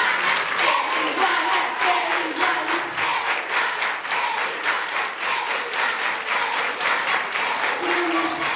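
A crowd clapping together in a steady rhythm, with high voices cheering and calling out over the claps.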